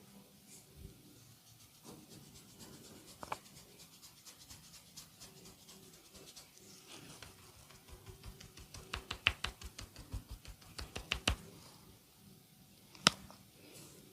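A masseur's hands working close to the microphone: scattered light taps, then a quick even run of percussive slaps or taps at about six a second, and one sharp snap about 13 seconds in.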